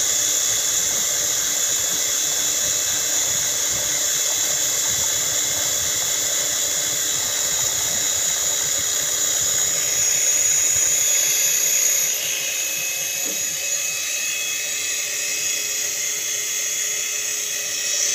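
Small drone motor spinning the rotor blades of a homemade plastic-bottle helicopter: a steady high-pitched whine with the whir of the blades. About twelve seconds in, the pitch shifts and it gets slightly quieter.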